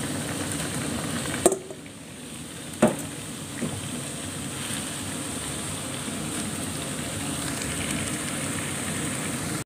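Clear vegetable soup boiling in an aluminium pot, a steady bubbling hiss. Two short knocks come about one and a half and three seconds in as a bowl of spinach is tipped in; the boil then goes quieter and slowly builds back up.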